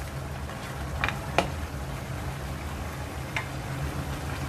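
Mutton pieces sizzling in a wok as their cooking liquid reduces, with a wooden spatula stirring and clicking against the pan three times, about a second in, just after, and once more near the end.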